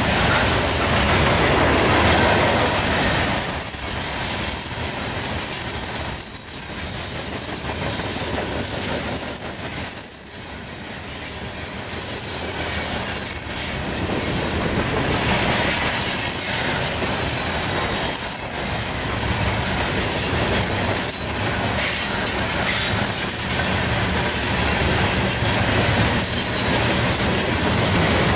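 Loaded freight cars of a rock train rolling past close by: a steady rumble of steel wheels on rail with clattering wheel strikes. The level dips briefly a few times in the first ten seconds, then holds steady.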